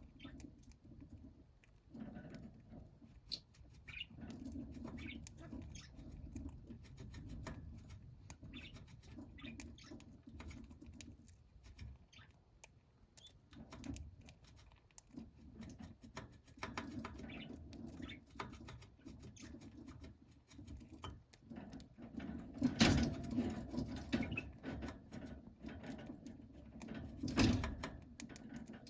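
Budgerigars moving about a cage: light scratching, tapping and pecking with a few short soft chirps, and two louder rustling bursts near the end.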